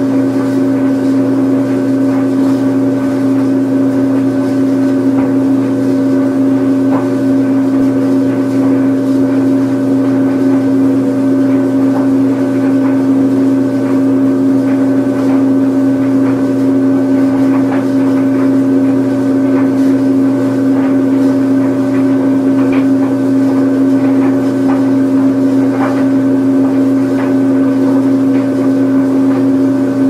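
Washing machine on its spin cycle: a steady motor hum with a constant mid-pitched tone and a few faint ticks.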